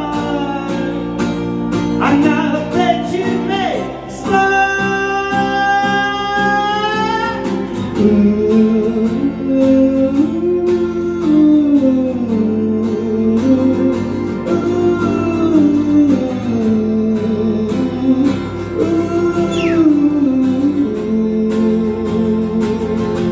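Live solo guitar music in an instrumental break of a song: sustained guitar chords under a long held note a few seconds in, then a melody line that bends up and down.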